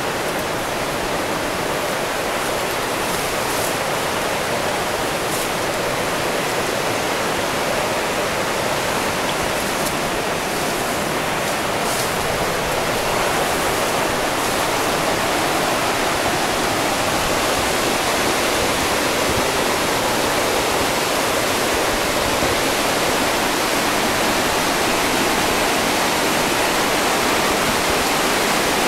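Fast-flowing forest stream rushing steadily over rocks, growing slightly louder in the later part.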